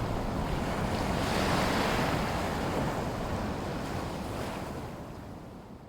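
Sea waves washing in a lagoon, with one wash swelling about a second and a half in. The sound then fades out near the end.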